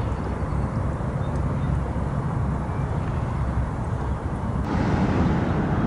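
Wind buffeting the microphone outdoors: a steady, fluttering low rumble. Near the end it turns brighter and a little louder.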